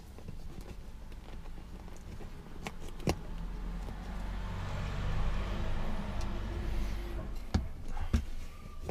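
Hard plastic clicks and knocks from rear-seat latch and seatbelt-buckle trim being handled: one sharp click about three seconds in and two more near the end. Under them a low rumble swells through the middle and fades again.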